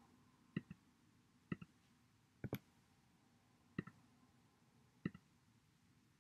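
Five computer mouse clicks about a second apart, each a quick press-and-release double tick, over faint room hiss.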